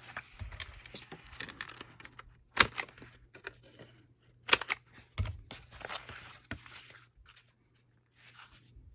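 Paper pages being cut to round their corners: paper rustling, with several sharp snaps of the cutter, the loudest about 2.5 and 4.5 seconds in.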